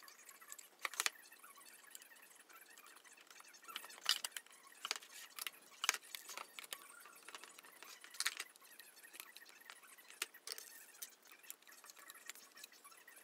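Irregular light clicks and taps as white flat-pack cabinet panels, their metal fittings and a screwdriver are handled and fitted together, the sharpest about one, four, six and eight seconds in.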